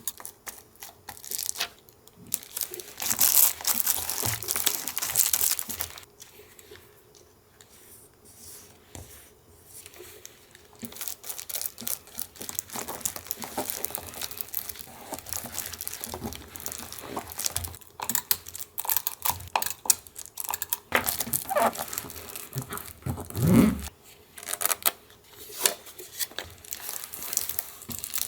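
Paper being torn and crinkled in irregular bursts, with a quieter lull early on and dense crackling handling later. A brief rising squeak sounds near the end.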